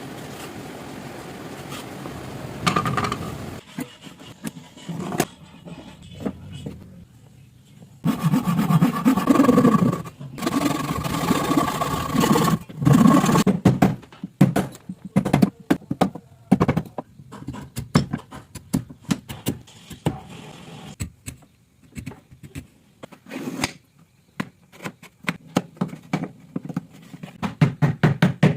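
Woodworking tools at work. A motorised tool runs in two short bursts with a steady whine, then a long, irregular series of sharp knocks and taps on wood follows.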